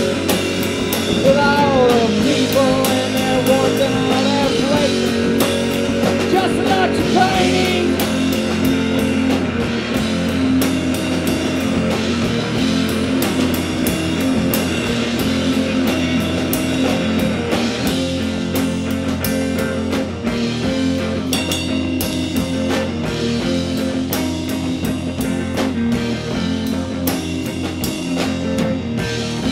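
Live rock band playing an instrumental passage: electric guitar and drum kit with cymbal strokes, steady and loud, with a bending melodic line over the first several seconds.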